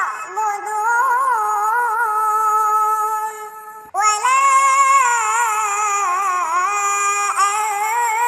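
A high solo voice singing long, ornamented held lines that waver and turn in pitch, without any beat, breaking off briefly about four seconds in and then going on.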